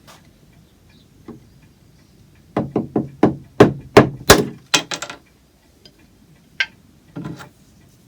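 Sharp knocks of a tool striking the glued-on brickwork pieces on a grandfather clock's wooden plinth, knocking them loose: a quick run of about a dozen blows, then a single knock and a short cluster near the end.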